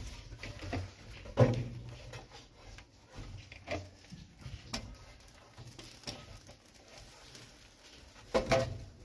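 Scattered knocks and scrapes of an iron fire rod against the logs and metal of a steam locomotive's firebox as the wood fire is being lit. The loudest knock comes about one and a half seconds in, with another cluster near the end.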